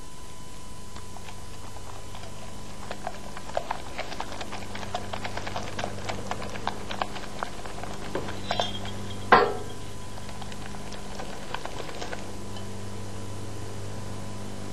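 Wire whisk clicking against a glass bowl while whisking the egg yolk, lemon juice and mashed potato-garlic base for aioli: a quick, irregular run of light taps that starts a few seconds in and dies away near the end, with one louder knock about halfway through.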